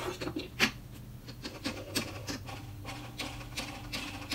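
Irregular small clicks and taps as cordless-drill gearbox parts are handled and fitted together, over a low steady hum.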